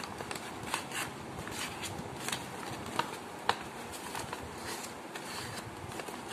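Sheet of coloured paper being folded and creased by hand: irregular rustles and crinkles, with two sharper crackles about three seconds in.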